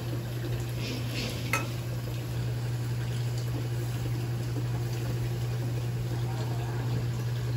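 Broth poured from a metal kettle into earthenware pots heating on gas burners, the liquid splashing into the hot pots, with a sharp metal clink about a second and a half in. A steady low hum underlies it all.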